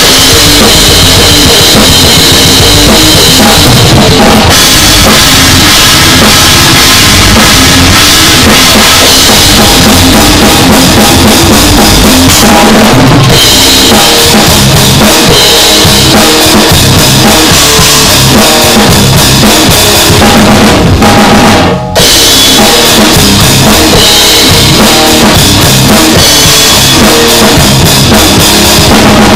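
Drum kit played loud and without pause, with bass drum, snare and cymbals, broken by a momentary stop about three-quarters of the way through.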